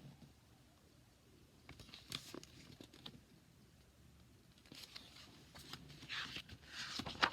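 Paper handling: soft rustles and light clicks, as pages of a picture book are turned, with a sharper click near the end.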